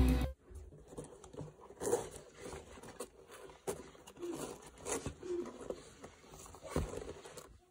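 Music cuts off just at the start. Then a Nike sling bag is handled on a table, giving scattered rustling and light clicks of fabric, strap and fittings, a little louder about two, five and seven seconds in.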